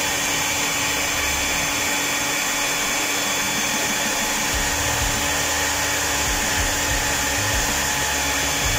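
Hand-held hair dryer blowing hot air steadily onto a freshly painted sample card to dry the paint and check the mixed colour. It makes an even rush of air with a steady whine.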